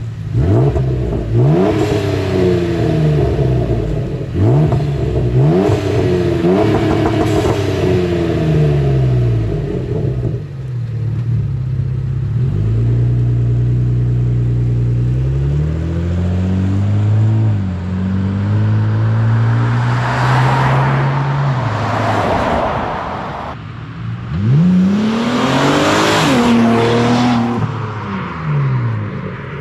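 2014 Ford Taurus SHO's twin-turbo EcoBoost V6 running through a prototype custom exhaust: several quick revs in place over the first ten seconds, then a steady held engine note. The car then pulls away, accelerating hard twice as it drives off.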